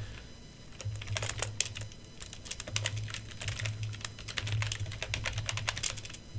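Computer keyboard keystrokes clicking in three quick bursts with short pauses between, as a shell command is typed.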